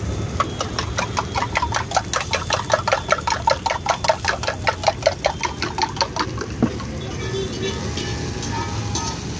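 Eggs being beaten with a spoon in a steel tumbler: quick, even metallic clinks, about six a second, that stop about six seconds in. Under them runs a steady low rumble.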